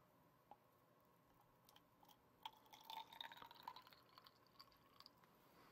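Water poured from a glass measuring cup into a small plastic shaker bottle, filling it to its water line: a faint trickle starting about two and a half seconds in, rising slightly in pitch as the bottle fills.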